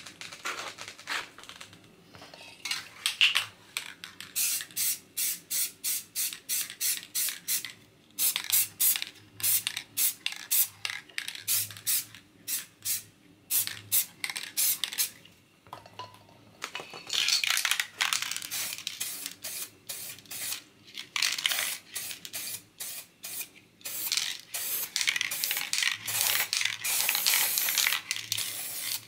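Aerosol spray-paint cans hissing. First comes a run of many short, quick bursts, then longer sprays in the second half.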